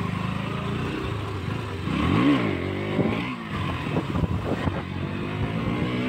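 KTM Duke 200's single-cylinder engine running as the bike rides at low speed. It is revved up and back down sharply about two seconds in.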